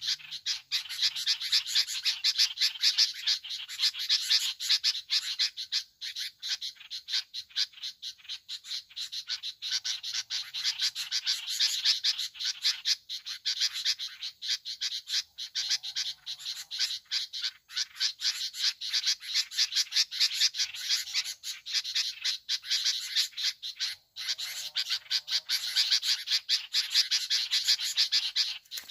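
A dense chorus of frogs calling with rapid, clicking pulses that keeps going throughout, with a few faint short bird calls a little past halfway and again near the end.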